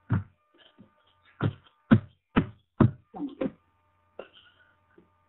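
A series of about seven sharp knocks or taps close to the microphone, unevenly spaced, most of them in the first three and a half seconds, with a faint steady hum underneath.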